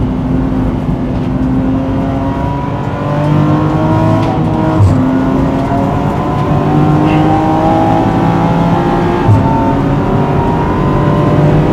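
BMW M4 GT4's twin-turbo straight-six race engine pulling under full throttle, its pitch climbing steadily and dropping sharply twice, about five and nine seconds in, at quick upshifts.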